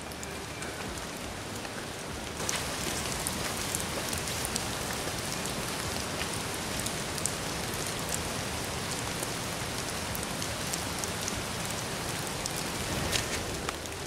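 Steady rain falling on forest foliage, an even hiss with many scattered drop ticks, getting louder about two and a half seconds in.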